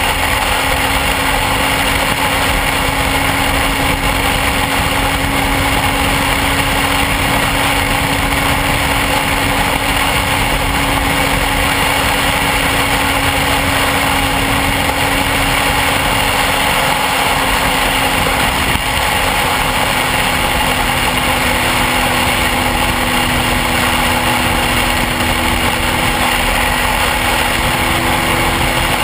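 Motorcycle engine running steadily at cruising speed under heavy wind rush on the camera microphone. About two-thirds of the way through, the engine note shifts slightly lower.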